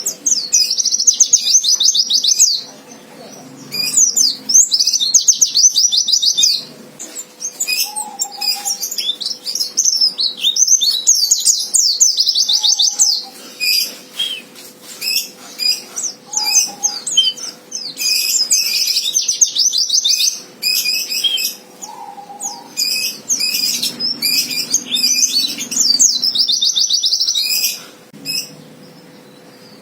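White-eye (pleci) singing in a fighting style: rapid, high trilling bursts of about two seconds, repeated several times, with short chirps in between.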